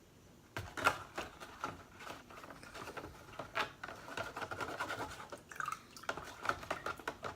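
Old 17-turn electric RC car motor running submerged in a bucket of rinse water: a thin steady whine with irregular splashing and clicks, breaking off briefly about five and a half seconds in.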